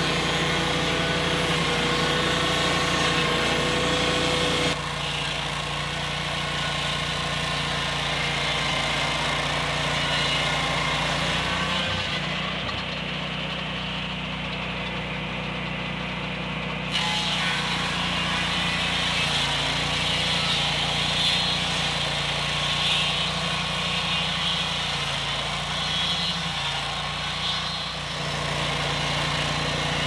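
Lucas Mill swing-blade sawmill running steadily under load, its engine driving the circular blade through a log. The sound shifts abruptly a few times.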